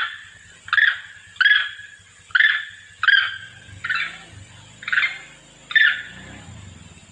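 A long-tailed macaque gives short, sharp calls, about one every three-quarters of a second, eight in a row, then stops about six seconds in. These are monkey calls to their companions, played as a lure.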